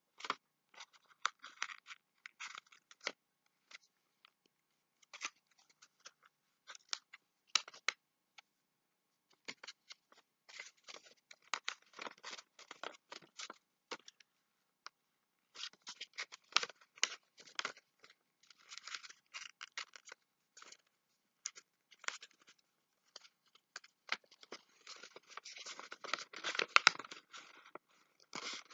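Paper rustling and crackling in short, irregular bursts as a sheet is folded and its creases pressed down by hand to form an origami box. The handling sounds come thicker and louder near the end.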